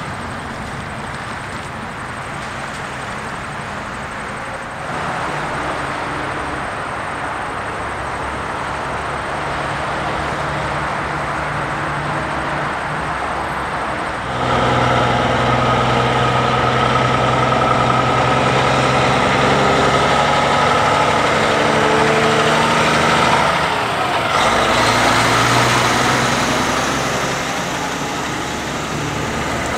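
Heavy diesel trucks of race car transporters. At first a truck drives off amid road traffic. From about halfway, truck engines idle steadily with a deep, even hum, the tone shifting as the scene changes.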